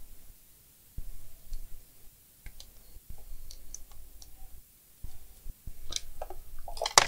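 Scattered small clicks and taps of hands handling an opened laptop's plastic and metal chassis, with a sharper, louder click near the end.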